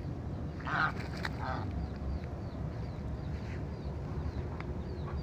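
Domestic goose giving two short nasal calls about a second in, followed by a run of small high cheeps repeating a few times a second. A low wind rumble on the microphone underlies it.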